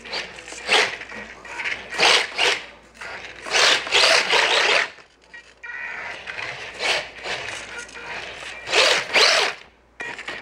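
Micro RC car driving on a smooth hard floor, its small electric motor whining and its tyres skidding in about five short bursts with brief pauses, as it drifts and spins donuts.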